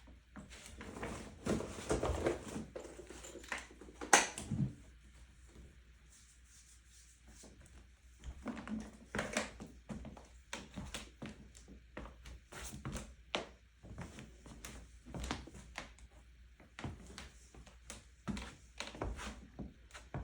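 Irregular clicks, knocks and rustling of tools and materials being handled on a wooden parquet floor, with one sharp crack about four seconds in.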